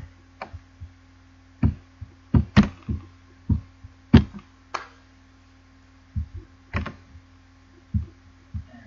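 Computer mouse and keyboard clicking and knocking close to the microphone: about a dozen sharp, irregular clicks with dull thumps, over a steady faint electrical hum.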